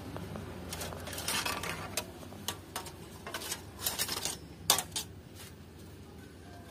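Rusty hand saw being pulled out of a pile of rusty rebar and scrap metal: a series of light metallic clanks and rattles as the blade knocks against the bars, the loudest clank after about four and a half seconds, then the clatter stops.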